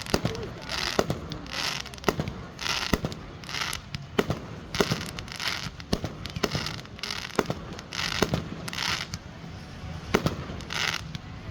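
Fireworks display: many sharp bangs from bursting aerial shells in quick, irregular succession, with short crackling bursts between them.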